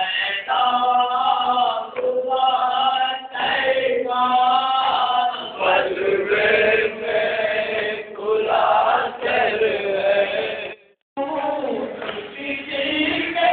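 A group of men chanting a nauha in unison, the Shia mourning chant sung at matam, in repeated phrases of a second or two. The sound drops out completely for a moment near the end.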